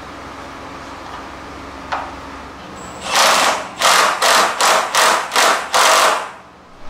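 Cordless impact wrench hammering a core-support mounting bolt into the frame in about seven short bursts, starting about three seconds in. A single clack comes before it, about two seconds in.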